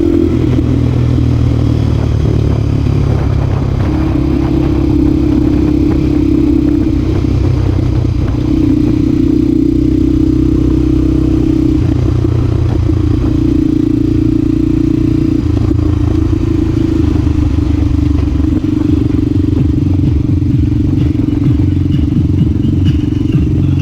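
Honda Tornado's 250 cc single-cylinder four-stroke engine running hard under way. Its note holds steady for stretches of a few seconds, broken by short dips several times.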